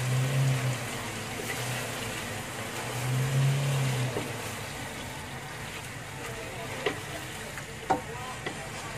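Choy sum greens frying in a wok with a steady sizzling hiss, and a wooden spatula stirring and knocking against the pan a few times near the end. A low droning hum comes and goes twice in the first half and is the loudest sound then.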